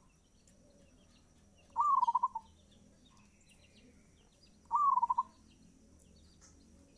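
Zebra dove (perkutut) singing its fast-tempo cooing song twice, about three seconds apart: each phrase a short rising note that runs into a quick rolling trill. Faint chirps of small birds are in the background.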